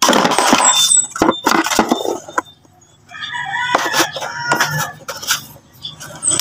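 A rooster crowing from about three seconds in, after a couple of seconds of loud rough noise. Underneath is the low steady running of a Yamaha Mio Sporty scooter engine at idle while its carburetor idle is being adjusted.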